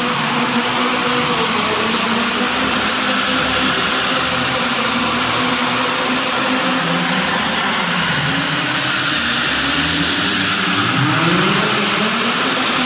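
Drift cars' engines revving hard, pitch repeatedly climbing and dropping as the drivers work the throttle, with a strong rise near the end, over a steady rushing noise, inside a large metal shed.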